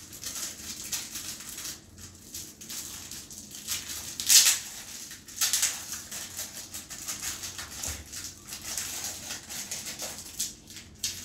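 Tiny plastic building pieces being handled and fitted together: scattered light clicks and rustling, with a louder rustle about four seconds in and another a little after five seconds.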